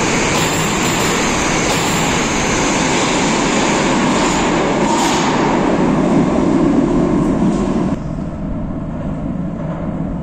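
Moscow Metro train pulling out of the station and running off into the tunnel: a steady rumble of wheels and motors that drops sharply about eight seconds in and then fades away.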